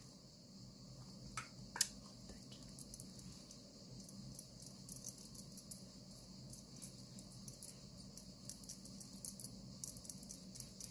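Faint handling of a blush compact and makeup brush: scattered small clicks and taps, with one sharper click about two seconds in, over a steady high hiss.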